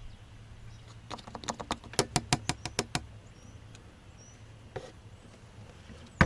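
A quick series of sharp clicks, about five a second for two seconds, then a single click and a louder one near the end.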